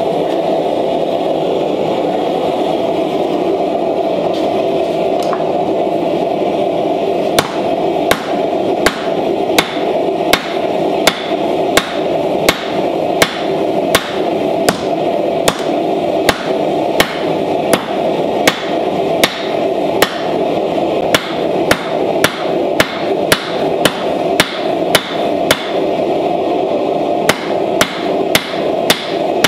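Hammer blows forging a red-hot railroad spike on a small anvil, at roughly one and a half strikes a second from about seven seconds in. They sound over the steady rushing of a gas forge burner.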